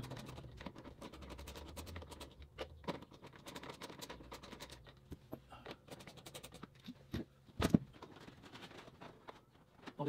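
Screwdriver backing screws out of a Chevy Cruze's trunk-lid trim: light scratching and ticking of the bit and screws, with one sharp knock about three-quarters of the way in.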